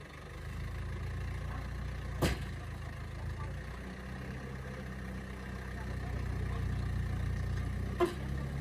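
An engine running steadily at a low, even pitch, with two sharp knocks: one about two seconds in and one near the end.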